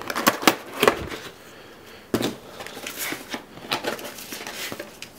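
Cardboard box packaging being handled by hand: a quick run of clicks and taps in the first second, a sharper knock about two seconds in, then scattered light taps and rustles.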